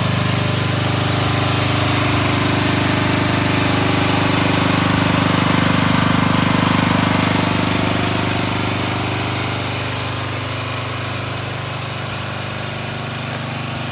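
AGT Industrial L12R mini excavator's small engine running steadily while the machine stands still. It is loudest around the middle and a little quieter toward the end.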